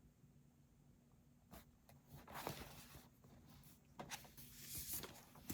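Near silence, then from about a second and a half in, a few soft clicks and short rustles of handling noise.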